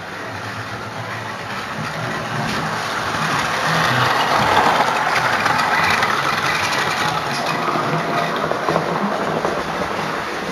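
Electric model train running past on the layout's track, its wheels and motor rumbling, growing louder to about the middle and then fading as it moves away.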